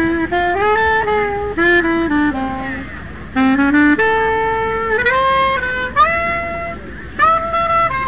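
Saxophone playing a solo melody: a run of quick, changing notes, a brief break about three seconds in, then longer held notes.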